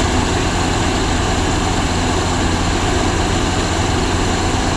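Rice harvesting machine's engine running steadily with a deep, even hum.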